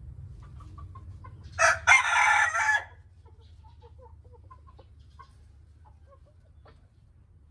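A cockerel crows once, loud and lasting just over a second, starting about one and a half seconds in. After it come only soft, scattered clucks from the chickens.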